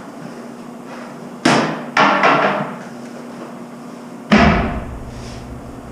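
Three sharp knocks, each with a ringing decay, over a steady hum: two close together about a second and a half in, and the loudest a little after four seconds, followed by a low rumble.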